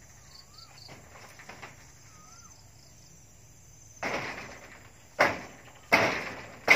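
Tokay gecko calling: starting about four seconds in, a run of loud, harsh calls, each beginning suddenly and fading off, about one a second.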